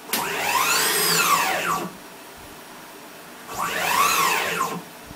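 Closed-loop NEMA 34 stepper motor driving the mill's X-axis ballscrew in two rapid jog moves, the first lasting almost two seconds and the second about a second and a half. Each is a whine that rises in pitch as the axis speeds up and falls again as it slows to a stop.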